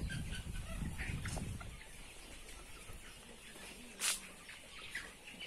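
Sonali chickens clucking in their pens, scattered short calls. A low rumble fills the first couple of seconds, and a single sharp click about four seconds in is the loudest sound.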